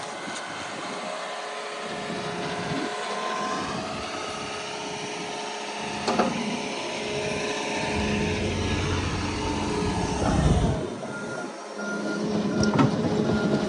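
Heavy earthmoving machine's engine running, louder for a moment around the tenth second. A backup alarm beeps about twice a second over the last couple of seconds.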